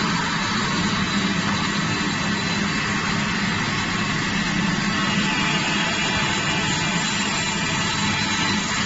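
CNC vertical wire foam cutting machine running steadily while its vertical wire cuts grooves into a foam sheet: an even mechanical hum with a hiss.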